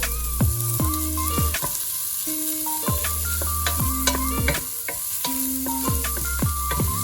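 Food sizzling as it fries in a hot pan while being stirred, with frequent short clinks and scrapes of the utensil against the pan.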